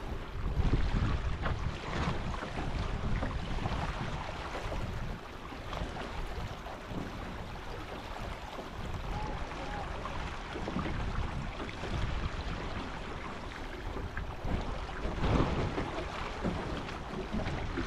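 Wind buffeting the microphone and water rushing and splashing along the hulls of an A-Class catamaran sailing slowly, not foiling. The wind gusts are louder about a second in and near the end.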